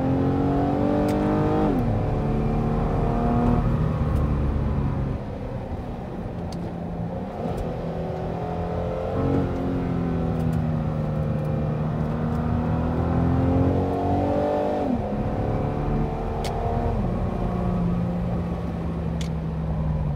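Exhaust of a 2012 Lincoln MKZ with its muffler replaced by 2.25-inch Flowmaster FX resonators, heard from inside the cabin while driving. The engine note climbs slowly under acceleration and drops sharply at upshifts, about two seconds in, again near fifteen seconds, and once more a little later.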